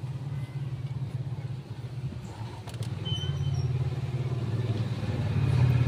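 Mitsubishi Strada pickup's diesel engine running at idle, a steady low pulsing rumble that grows louder toward the end.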